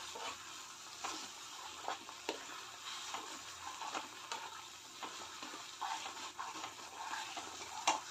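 Steel spatula stirring and scraping thick tomato chutney around a kadhai in irregular strokes, over a steady sizzle of the paste cooking in oil, with one sharper scrape near the end. The chutney is being cooked down until no water is left.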